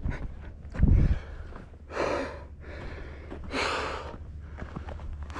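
A man breathing hard in long, heavy gasps, out of breath from fighting and carrying a heavy fish. A low thump about a second in.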